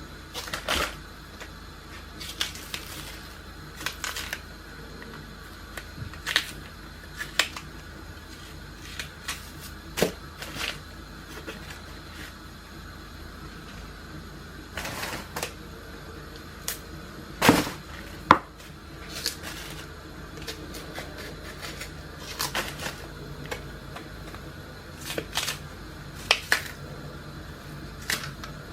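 Irregular clicks and knocks of kitchen work: utensils, pots and dishes being handled and set down, a sharp knock every second or two, loudest in a close pair about two-thirds of the way through.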